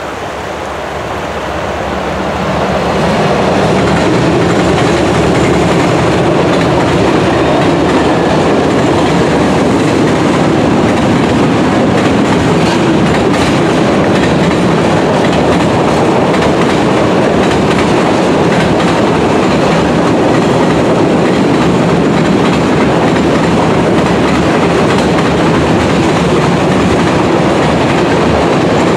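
Mixed freight train rolling across a steel truss bridge. The wheel and rail noise builds over the first three seconds, then stays loud and steady as centerbeam lumber flatcars and boxcars pass.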